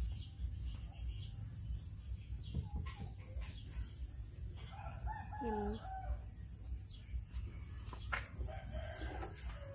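A rooster crowing once, about halfway through, with a shorter, weaker call near the end, over a steady high whine.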